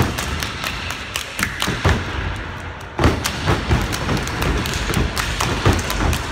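Step routine: a line of steppers stomping on a stage floor and clapping in a quick, syncopated rhythm. The beats thin out briefly about two seconds in, then resume with a loud unison stomp at three seconds.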